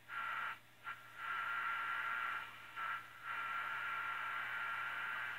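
Static and a steady whistle from the speaker of a 1955 Sylvania AA5 tube AM clock radio as it is tuned between stations, picking up interference. The noise cuts out and back in several times.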